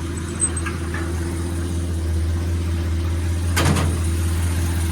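1946 Hudson Commodore Eight's flathead straight-eight engine idling, purring steadily and smoothly.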